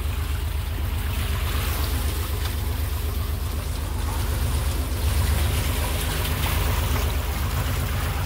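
Boat engine running steadily with a low, even throb, and water splashing and trickling along the hull.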